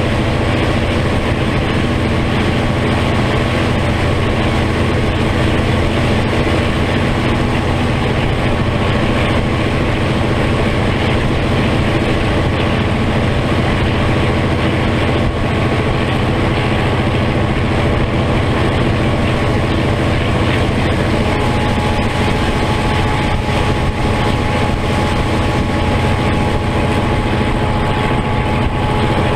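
NZR Da-class locomotive's EMD 567 V12 two-stroke diesel (an EMD G12) running steadily under way, recorded from aboard the train as a loud, even drone. A thin steady whine joins about two-thirds of the way through.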